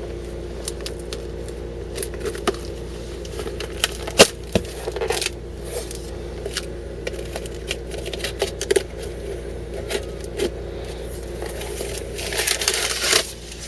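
A cardboard shipping box being worked open by hand: scattered clicks and scrapes, a sharp knock about four seconds in, and a noisy burst about a second long near the end, over a steady hum.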